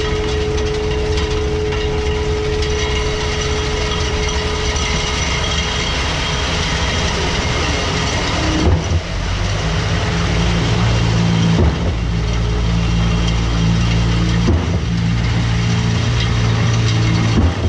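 Concrete boom pump truck's diesel engine and pump running steadily. From about halfway through, the engine note jumps briefly about every three seconds.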